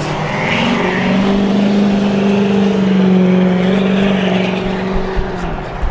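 A motor vehicle driving past on the road, its engine a steady hum that swells over the first second or two and fades away near the end.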